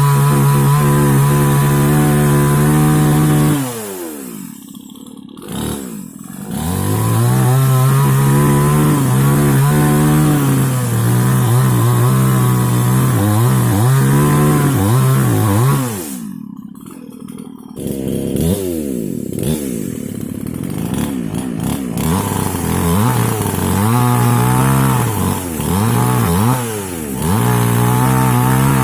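Two-stroke mini chainsaw running at high throttle. About 4 s in and again about 16 s in, its pitch falls away as the throttle is let off, then it revs back up. Through the later part its pitch wavers up and down before settling high again near the end.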